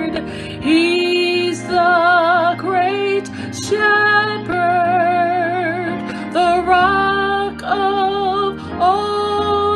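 A woman singing solo, long held notes with wide vibrato and short breaks between phrases, over a steady sustained instrumental backing.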